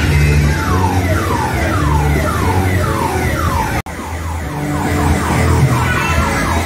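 Background music with a steady bass line under a repeated siren-like falling sweep, about two sweeps a second. The sound cuts out briefly about halfway, then comes back with shorter, quicker sweeps.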